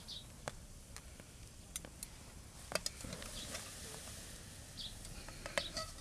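Open-air ambience: a few short, high bird chirps and scattered light clicks over a low, steady background noise.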